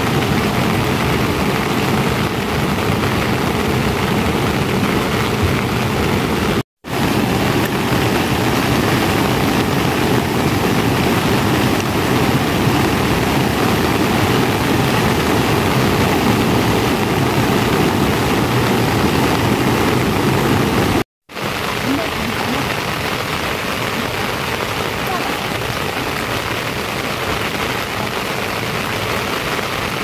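Heavy rain falling steadily, a dense even hiss broken by two brief silent gaps.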